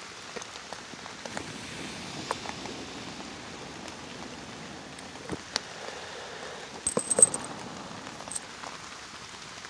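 Steady light patter of rain, with scattered small clicks and taps and a short cluster of sharper, slightly ringing clicks about seven seconds in.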